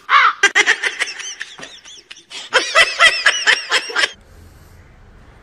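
Dogs giving a rapid series of short, rising-and-falling yelping howls, with a pause in the middle; the calls stop about four seconds in.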